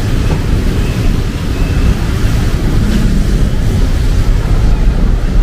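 Rainy city street: a steady hiss of rain over a loud, uneven low rumble.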